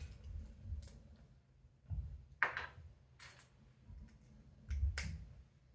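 Plastic Lego pieces clicking and rattling as they are handled and pressed together, a handful of separate sharp clicks with soft knocks underneath.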